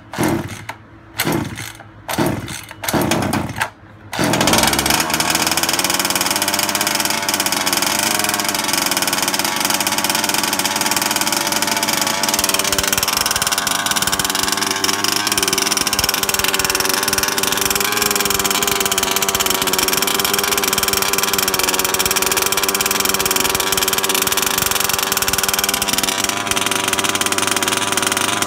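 Small two-stroke gas engine of a large-scale RC car, choke off, making several short sputtering start attempts, then catching about four seconds in and idling steadily.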